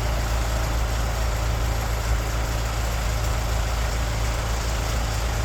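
A heavy engine idling steadily, a low even hum with no change in speed.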